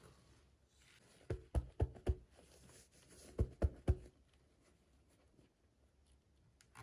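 Small objects being handled on a tabletop: soft rustling, and two quick runs of about four light knocks, the second run about a second after the first.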